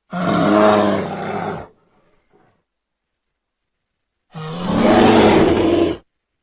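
Fake dog snoring loudly, two long snores about four seconds apart, each lasting about a second and a half, with dead silence between them.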